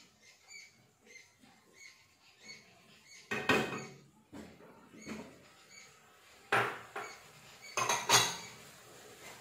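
Spatula scraping and knocking against a non-stick wok as a chopped chicken and vegetable mix is stirred: a few sharp scrapes, one a few seconds in and two more near the end.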